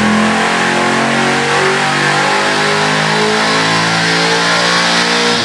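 Carbureted 357-cubic-inch LT1 small-block V8 at wide-open throttle on an engine dyno, revs climbing to about 6,700 rpm in a power pull testing 36 degrees of ignition advance. At the very end the throttle closes and the sound drops sharply.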